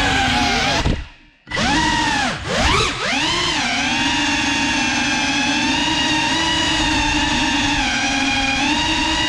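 GEPRC Cinelog 35 cinewhoop's brushless motors and props whining, the pitch rising and falling with the throttle. About a second in the sound cuts out almost completely for half a second as the throttle is chopped. It then spools back up and settles into a steady whine from about three seconds in.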